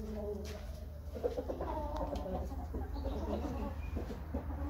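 Several Dark Brahma chickens clucking at once, their short low calls overlapping without pause, over a steady low hum.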